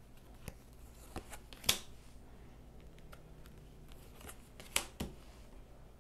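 A tarot deck being shuffled by hand: soft scattered swishes and clicks of cards, with a sharper snap just under two seconds in and two more close together near the end.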